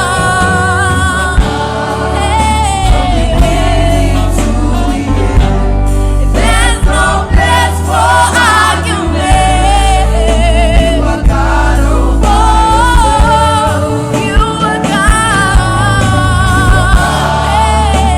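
Gospel choir singing with a band: voices over a heavy bass and regular drum hits.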